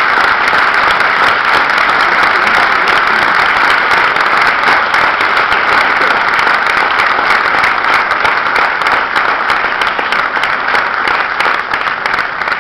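An audience applauding loudly and steadily, the clapping thinning out near the end.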